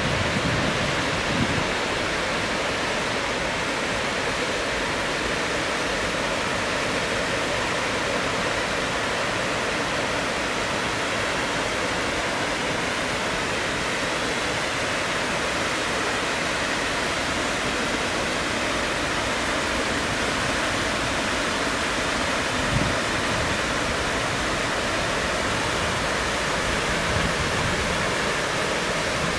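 River water pouring over a concrete weir: a steady, even rushing.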